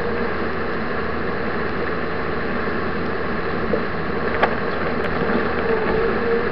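Land Track tracked snow vehicle ploughing through deep snow, heard from inside the cab: steady engine and track noise, with a single sharp click about four and a half seconds in.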